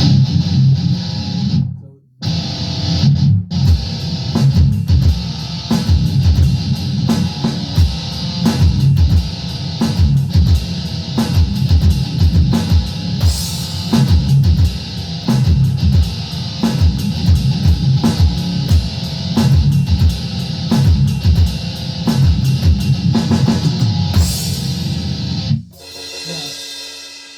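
Electric guitar playing a rock chorus riff with drums, with a short break about two seconds in. The playing stops near the end and a last note rings out and fades.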